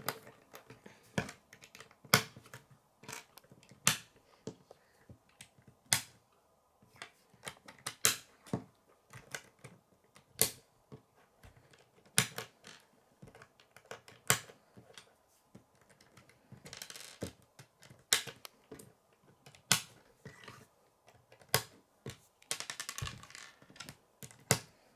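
K'nex plastic rods and connectors clicking and snapping together as they are handled and assembled: a string of irregular sharp clicks, with two short stretches of rustling.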